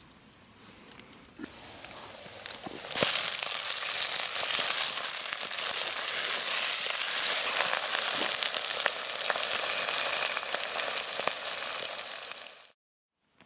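Food sizzling and frying in a hot pan, a dense hiss with small crackles that swells sharply about three seconds in, holds steady, then cuts off abruptly near the end.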